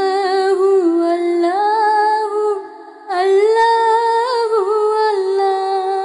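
Female voice humming a wordless, ornamented melody from a Bengali ghazal, in two long phrases with a short break a little before halfway, over a steady held note.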